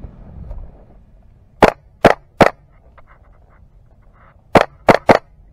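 Airsoft rifle firing single shots: three sharp cracks less than half a second apart, then after a two-second pause another three in quicker succession.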